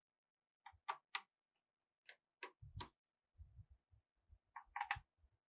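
Faint, short clicks and ticks of a screwdriver working the screws of a laptop's plastic bottom case, in three small clusters with a few soft low knocks in between.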